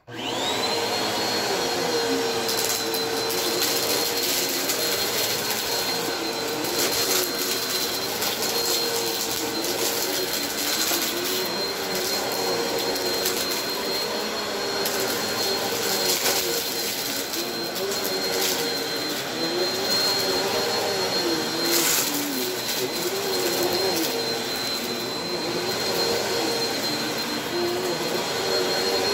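Vacuum cleaner switching on, its motor spinning up to a steady high whine within the first second, then running as it is pushed over a shag rug, with scattered crunchy crackles as grit and debris are sucked up.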